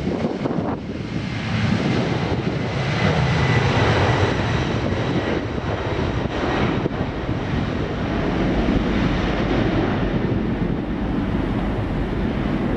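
Jet airliner engines at takeoff power: a steady broad rush with a faint high whine, swelling about two seconds in and then holding, with wind on the microphone.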